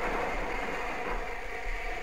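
'Lord Nelson' class four-cylinder 4-6-0 steam locomotive drawing away with its train. The engine and train sound fades to a lower, steady rumble as they recede.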